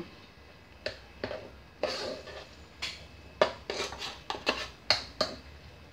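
A metal cooking pot clinking and scraping as corn couscous farofa is mixed inside it: a string of irregular sharp knocks, coming thicker in the second half.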